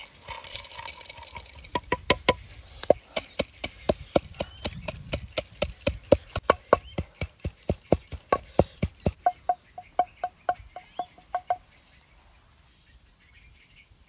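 Roasted peanuts poured into a mortar, then pounded with a wooden pestle at about three strikes a second, each strike a sharp knock with a short ringing note. About two seconds from the end the strikes turn lighter and stop.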